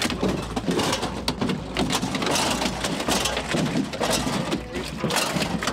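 A freshly landed halibut thrashing against the aluminum deck and fish box, making rapid, irregular slaps and thumps.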